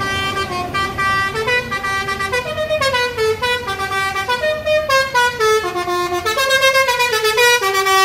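Multi-tone "telolet" bus horn playing a fast tune of stepped notes, over the low running of the bus's engine. The tune stops right at the end.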